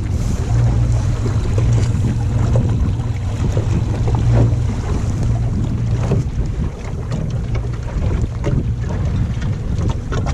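Loud wind buffeting the microphone of a small dinghy under way, with water slapping and splashing against the hull.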